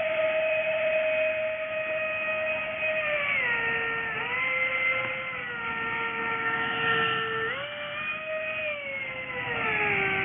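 Motor of a small homemade RC bottle boat whining steadily as it runs across the water. The pitch drops about three and a half seconds in, comes back up near eight seconds, and falls away again near the end as the throttle changes.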